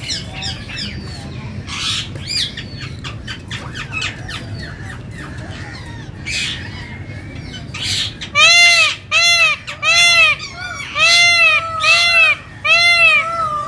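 Peafowl calling: after a few seconds of scattered chirps and squawks, a run of about eight loud, short, arched honking calls comes quickly one after another.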